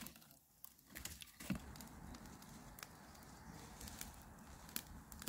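Wood campfire crackling faintly, with scattered sharp pops and snaps over a soft steady rush that comes in about a second and a half in.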